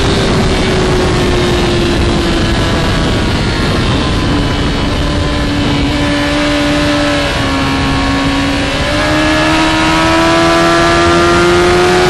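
Inline-four sportbike engine running hard at high revs, heard onboard with heavy wind noise over the microphone. Its pitch eases slightly, dips around the middle, then rises steadily as the bike accelerates through the last few seconds.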